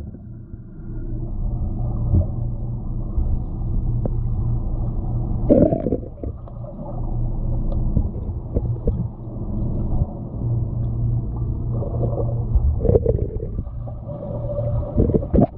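Muffled underwater sound picked up by a GoPro held beneath the water: a steady low hum and rumble. Brief louder swishes come about five and a half and thirteen seconds in.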